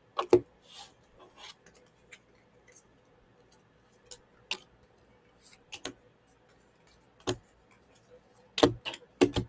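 Playing cards being sorted and laid down on a tabletop: scattered sharp clicks and taps, with the loudest cluster near the end.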